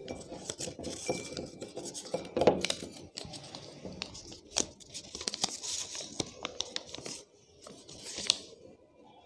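A small folded paper slip being unfolded by hand: repeated crinkling and rustling with sharp little crackles, stopping about a second before the end.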